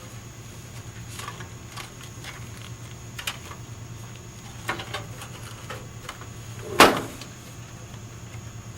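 A few light clicks and knocks with one much louder knock about seven seconds in, over a steady low hum.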